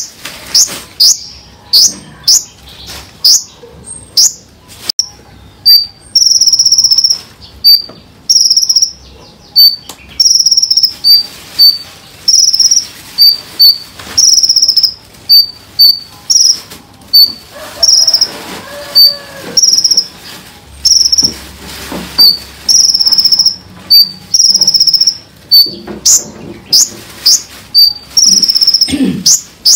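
Small songbird singing a rapid, tightly packed 'tembakan' song: a long series of short, piercing high notes, some held a little longer, with quick downward-sweeping calls near the start and end. It is a cage-bird training recording, and there is faint running water underneath.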